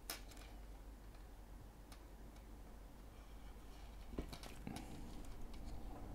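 Faint ticks and rubbing of fingers handling monofilament fishing line as a loop knot is drawn tight at a lure's eye, with a cluster of ticks about four seconds in. A faint steady hum lies underneath.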